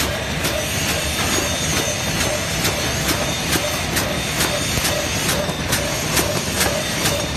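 High-speed heat-sealing plastic garbage bag making machine running, clacking about twice a second over a steady mechanical hiss.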